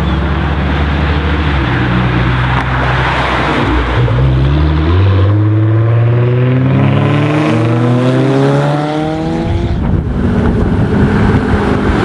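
Nissan GT-R R35's twin-turbo 3.8-litre V6 accelerating hard. Its note climbs in steps, then rises steadily for several seconds before breaking off about ten seconds in, leaving a rougher, noisier engine sound.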